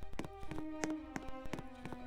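Background music: sustained pitched notes over a quick, tapping beat.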